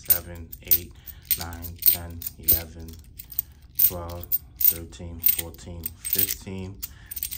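Metal dollar coins clinking against each other one at a time as they are counted off a stack held in the palm, a little under two clicks a second. A low voice is heard between the clicks.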